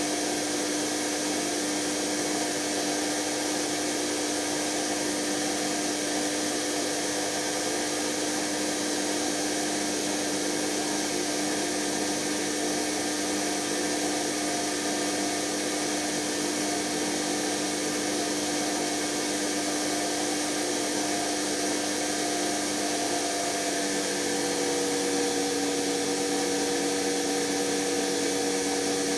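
Electra ELEC1647A3 washing machine's brushed motor running steadily with a whine. Its tone shifts and it gets slightly louder near the end. The motor's commutator is damaged and it is dying.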